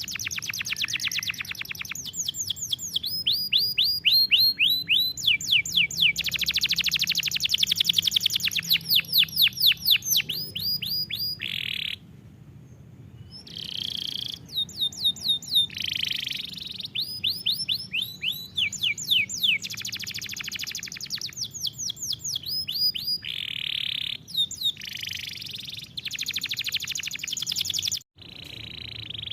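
Canary singing a long song of rapid trills: fast runs of repeated sweeping notes and buzzing rolls, broken by a pause of about a second near the middle.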